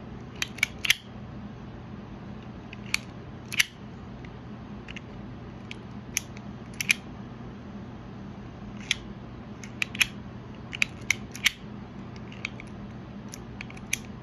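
Sharp clicks of a Toughbuilt scraper utility knife's slide and flip-head mechanism being worked back and forth, in irregular clusters of one to three, over a faint steady low hum. The head only sometimes flips between knife and scraper, which the owner suspects may mean his knife is defective.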